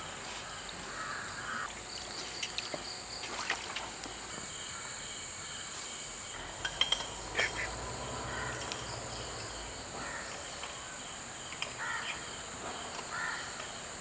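Crows cawing a few times over a steady high-pitched insect drone, with a few light knocks in between.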